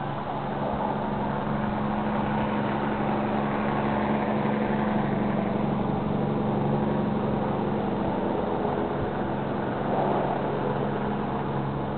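Steady low machine hum, several held tones over an even wash of rushing noise, unchanging throughout.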